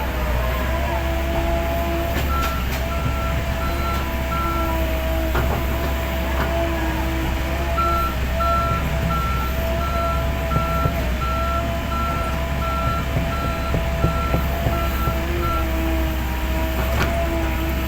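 Heavy earthmoving machine running with a steady hum, its motion alarm beeping in a series of short high beeps, about two a second; the beeping stops for a few seconds about a quarter of the way in, then resumes and stops again near the end.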